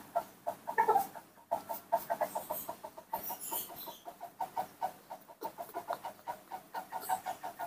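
An animal making soft, rapid clucking calls, about four or five a second, that start about a second and a half in and keep going, after a couple of louder notes.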